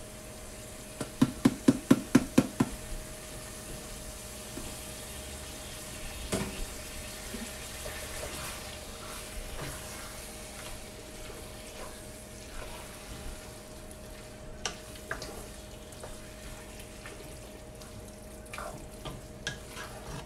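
A plastic squeeze bottle of barbecue sauce sputters about ten times in quick succession, air and sauce squirting out as the nearly empty bottle is squeezed. Then a wooden spoon stirs ground beef in a pot with soft scraping and a low sizzle, and one knock of the spoon comes about six seconds in. A faint steady hum runs underneath.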